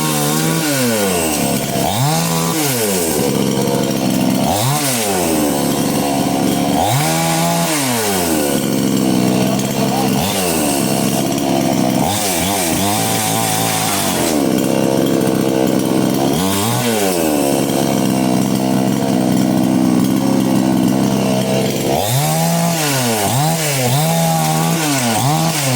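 An engine revving up and down over and over, its pitch rising and falling every two to three seconds, and holding steadier for a few seconds in the later part.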